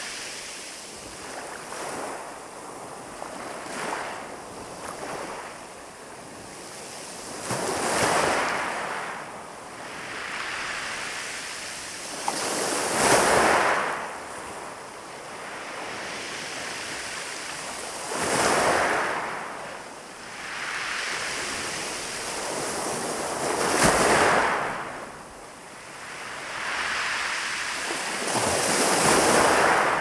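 Calm sea waves breaking on a pebble beach, one about every five seconds, each swelling into a loud hissing wash and fading away.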